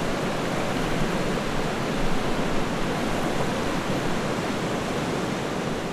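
A river flowing, a steady, even rush of water.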